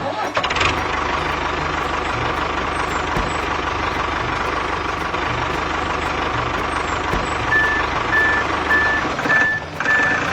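Diesel-type vehicle engine running steadily with a fast low chugging, joined in the last few seconds by a reversing alarm beeping about twice a second.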